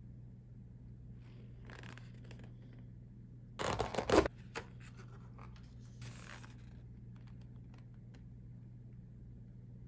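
Orange tape seal on a plastic oden takeaway container being torn off: a short, loud tearing rip about four seconds in. Softer plastic rustling comes before and after it as the lid is handled.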